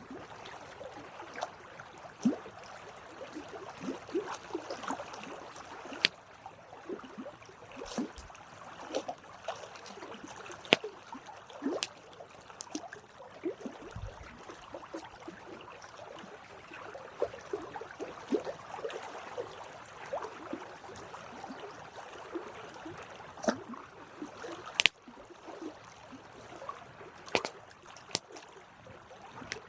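Campfire crackling steadily, with many small snaps and scattered sharper pops, the loudest about 25 seconds in.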